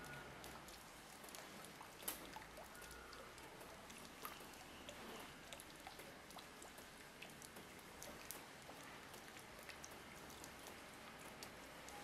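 Faint, irregular dripping of water drops: small scattered ticks over a soft steady hiss, with a sharper tick about two seconds in.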